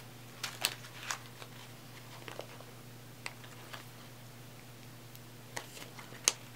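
Sheet of alphabet stickers in its clear plastic packaging being handled: scattered crinkles, taps and clicks, a cluster in the first second and the sharpest click about six seconds in.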